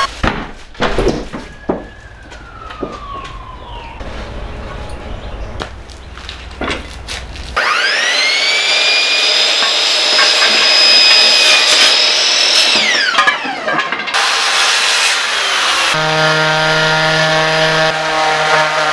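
Metal bar clamps knocking and clanking as they are handled on glued red cedar slats. About seven seconds in, a small electric power tool spins up with a rising whine, runs steadily for about five seconds and winds down. In the last few seconds a random orbital sander runs on the cedar slats with a steady hum.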